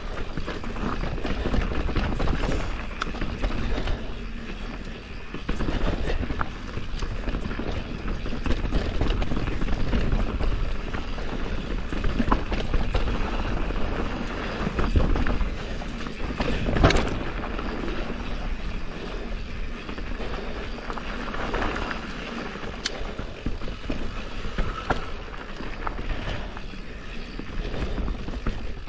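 Mountain bike riding down a rough trail: tyres rolling over dirt and rocks, with the chain and frame rattling and a steady rush of wind on the microphone. One louder knock comes a little past halfway.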